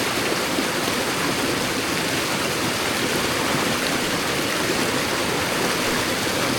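Fast-running stream rushing steadily over its bed, an even, unbroken water noise.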